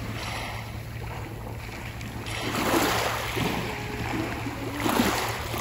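Shallow sea water washing and splashing, with surges about every two to three seconds.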